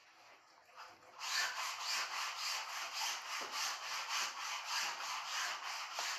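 Kitchen knife sawing back and forth through goat intestine on a plastic cutting board: repeated scraping strokes, about three a second, starting about a second in and stopping just before the end.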